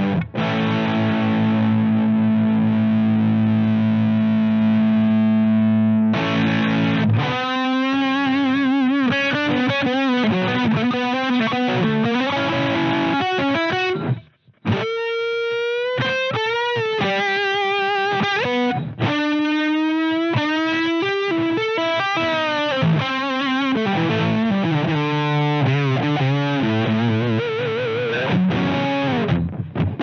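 Electric guitar played through a Twinote Boogie Distortion pedal in a heavily distorted tone. A chord rings out for about six seconds, then single-note lead lines follow with string bends and wide vibrato. The playing stops briefly about halfway through before more lead and chords.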